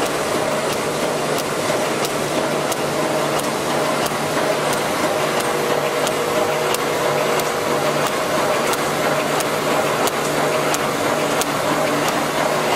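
Automatic welded wire mesh machine running: a steady hum and machine noise, with a sharp click repeating about one and a half times a second.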